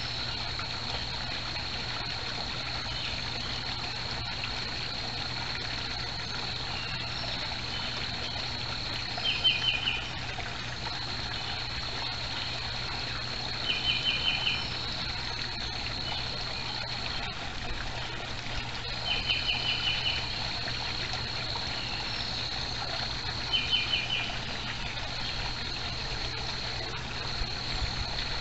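Steady trickle of water in a backyard koi pond, over a steady high whine. Five times, about every four to five seconds, a bird gives a short rapid trill of notes.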